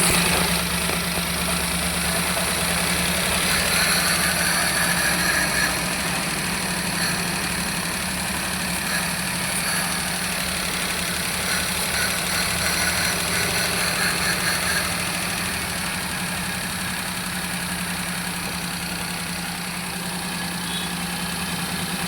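Suzuki Alto engine idling with a misfire, running steadily but with an uneven, stumbling low pulse.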